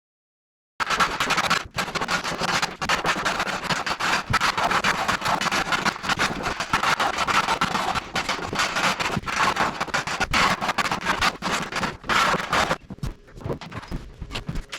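Loud, continuous rough scraping noise full of quick irregular scratches. It starts abruptly about a second in, after silence, and drops off near the end.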